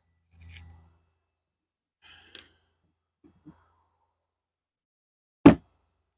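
A few faint handling clicks and rustles, then a man's short, loud sigh about five and a half seconds in.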